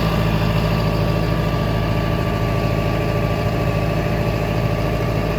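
Farm tractor engine running steadily with an even low hum.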